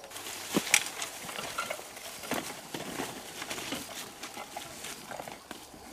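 Footsteps on a dirt trail and through tall grass and brush, irregular crunching steps with rustling stems, loudest about a second in.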